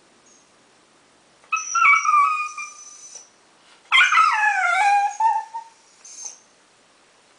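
Dachshund whining: two long, high-pitched whines, the second sliding down in pitch, then a short faint one near the end.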